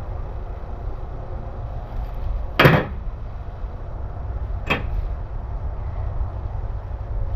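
Two sharp knocks about two seconds apart, the first louder, over a steady low rumble.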